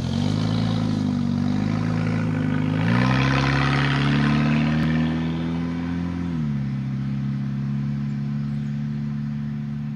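2000 Ford Focus LX's four-cylinder engine running through a straight-piped exhaust as the car drives past. The engine note steps up in pitch about three seconds in as it accelerates and is loudest just after, then drops about six seconds in and holds a steady lower note as the car pulls away.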